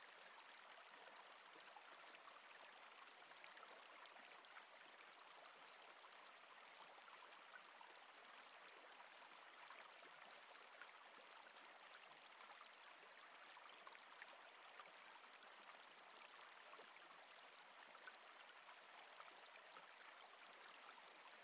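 Faint, steady sound of a flowing river, an even rush of running water with small splashes.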